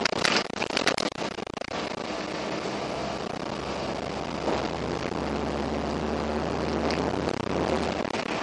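Irisbus Citelis city bus running, heard from inside the cabin: a loud, steady engine drone with a low hum that sets in about three seconds in. In the first second and a half there is a burst of loud crackling rattles.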